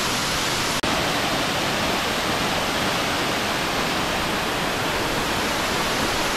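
Waterfall cascading down rock steps: a steady, loud rush of water, broken once by a split-second gap a little under a second in.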